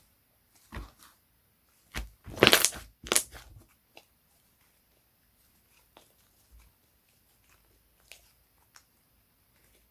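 Slime being squeezed and pressed by hand. There are a few loud, sharp squishes between about two and three and a half seconds in, the loudest just after two and a half seconds, then only faint small pops and clicks.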